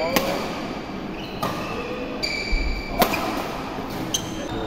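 Badminton rally: rackets striking the shuttlecock with sharp hits about every one and a half seconds, four in all, with short squeaks of court shoes on the floor between them.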